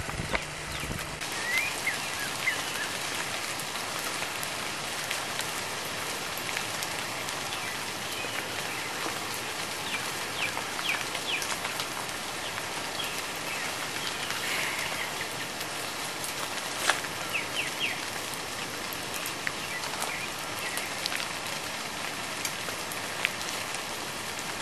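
Steady outdoor hiss like light rain, with short high chirps of birds now and then and a few sharp clicks.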